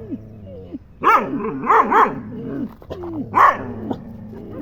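Dog barking about four times, with softer whining yelps between the barks.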